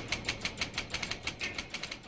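Rapid, even mechanical clicking, about ten to twelve clicks a second, from a small machine.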